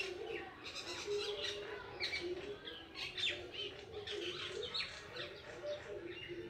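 Birds chirping continuously, many quick high chirps overlapping.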